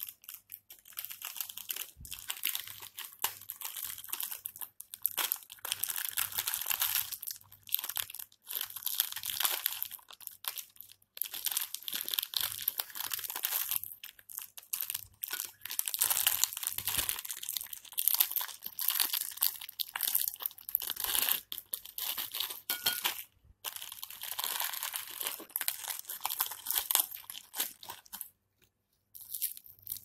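Indian ringneck parrot's beak tugging and tearing at the plastic wrapper of a biscuit packet: irregular crinkling and crackling of plastic, broken by a few short pauses.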